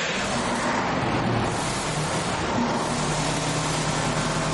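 Engine running steadily at idle right after start-up, held at idle speed by its electronic speed controller with the idle switch on.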